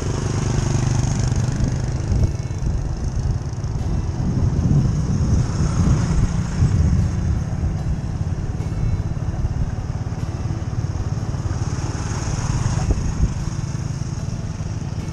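Small motorcycles riding along a dirt road, engine running steadily, heard from on board with a low rumbling noise of wind on the microphone.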